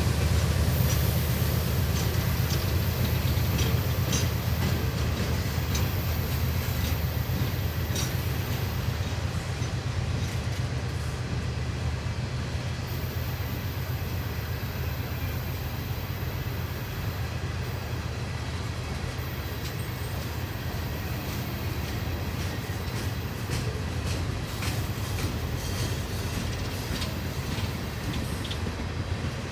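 CSX freight train's cars rolling past: a steady low rumble of wheels on rail with scattered clicks over the joints, and a high wheel squeal that comes and goes. The sound eases slowly as the train goes by.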